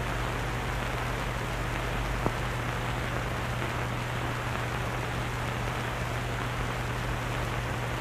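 Steady hiss and low hum of an old film soundtrack, with a single click about two seconds in.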